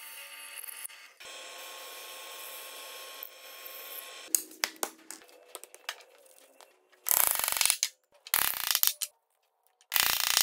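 A drill press runs steadily as a Forstner bit bores into a solid wood block. Then come a few light clicks and clatters as parts are handled, then three loud bursts of hammering as wooden dowels are driven into the block.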